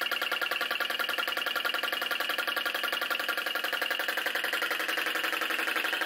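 Flame licker vacuum engine running fast and steadily while belt-driving a small generator: a rapid, even mechanical beat of about ten a second with a ringing tone over it.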